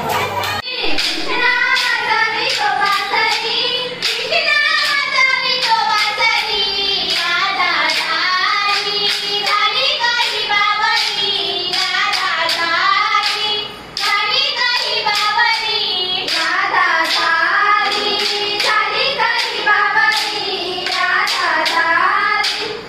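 High voices singing a folk song over a steady beat of wooden dandiya sticks clacking together.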